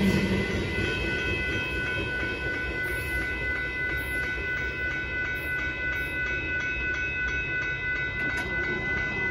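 Railroad grade-crossing warning bell ringing steadily while the signals flash, over the low rumble of a Union Pacific grain train moving away after clearing the crossing.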